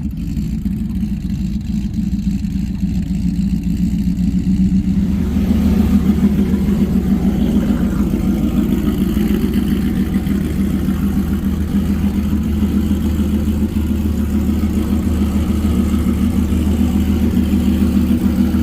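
Pickup truck engine idling steadily, a little louder and fuller from about five seconds in.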